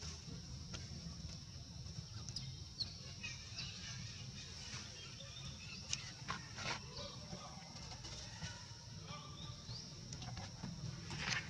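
Outdoor ambience: a steady high-pitched drone with scattered short high chirps and a few sharp clicks or rustles.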